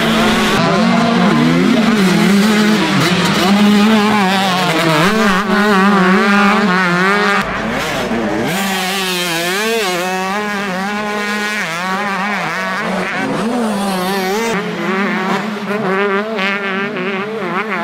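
125cc two-stroke motocross bike engines revving hard, their pitch rising and falling with the throttle and gear changes.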